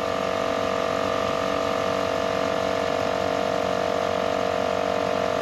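Morrflate TenSix 12-volt air compressor running steadily under load, with an even pitch, while airing up four tires at once through a manifold hose at about 32 psi.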